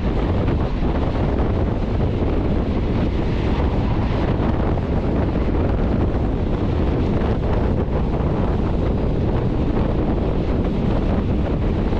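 Steady wind rushing over a microphone held out of a moving passenger train's window, with the train's running noise underneath.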